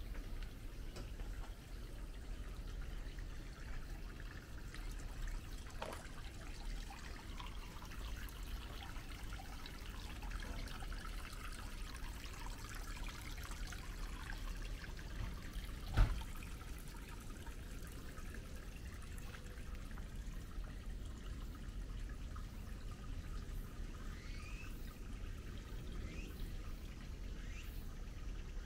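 Water trickling steadily, with a single sharp knock about sixteen seconds in and a few short rising chirps near the end.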